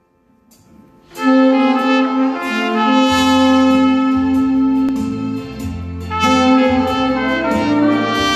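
Trumpet playing a slow melody of long, held notes with a saxophone, entering about a second in after a faint start. A bass line joins about three seconds in, with steady light cymbal ticks, as from a backing track.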